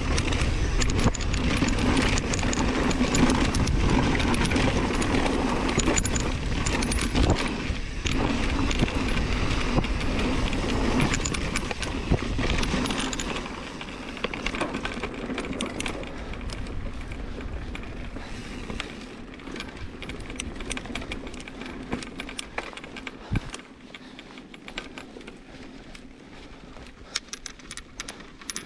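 Mountain bike ridden along a dirt trail: a steady rush of wind and tyre noise with frequent rattles and clinks from the bike. The rush drops about halfway through, leaving mostly the rattling and clicking over bumps.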